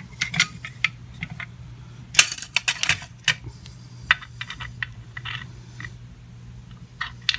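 Small metal parts clicking and clinking as the mower's blade clutch, its bracket and a bolt are handled, with a denser run of clicks about two to three seconds in. A steady low hum sits underneath.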